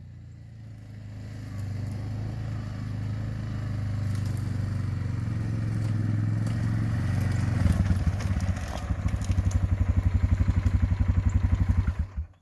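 An engine running with a steady low hum, settling about eight seconds in into a fast, even pulsing like an idle, then cutting off abruptly near the end.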